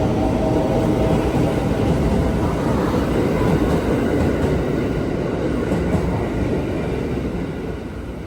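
Passenger train running along the station tracks, a steady rumble of wheels and motors that slowly fades as it moves away.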